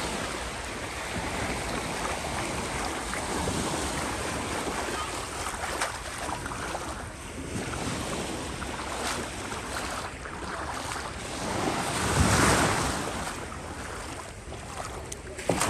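Sea surf: waves washing in and ebbing in a continuous rush, with one wave swelling loudest about twelve seconds in and a brief sharper crash near the end.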